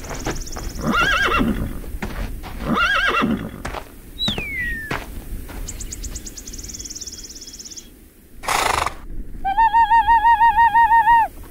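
Foley for a Western scene. A horse whinnies twice, with some rhythmic jingling around it, and a short rushing burst of noise sounds near the two-thirds mark. Then comes a loud Apache war cry: a high wavering ululating yell of about seven warbles a second, held for nearly two seconds.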